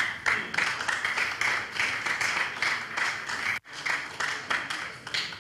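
A small crowd clapping: many overlapping hand claps, with a momentary break about three and a half seconds in.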